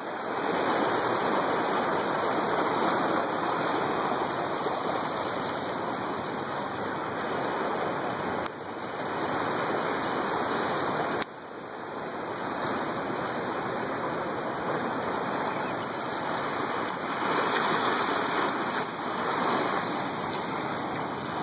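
Steady rush of surf washing onto a beach, with the level dropping off abruptly twice near the middle.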